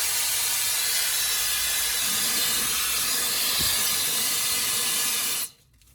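Brushless high-speed hair dryer running, a steady loud rush of air, then switched off about five and a half seconds in, the sound cutting off suddenly.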